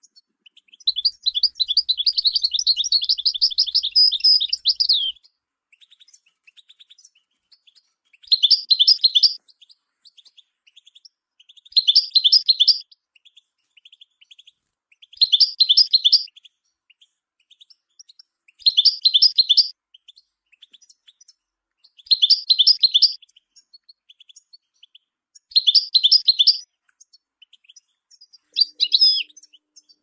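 European goldfinch singing: a long, rapid twittering phrase of about four seconds, then a short twittering phrase repeated seven times at even gaps of about three and a half seconds, with faint soft ticks in between.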